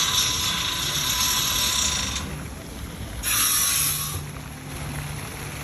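Two bursts of hissing: a long one of about two seconds, then a shorter one of about a second, each starting and stopping abruptly.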